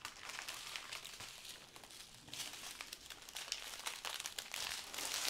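Clear plastic bags of diamond-painting drills crinkling as hands handle and turn a strip of them, a crackly rustle in uneven bouts that grows louder in the second half.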